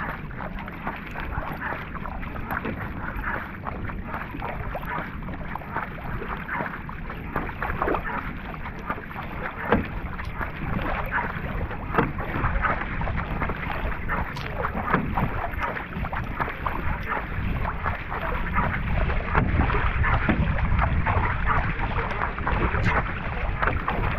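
Wing-paddle strokes from a flatwater racing kayak: the blades catch and splash through the water on alternate sides, over a steady rush of water along the hull. The strokes get a little louder toward the end.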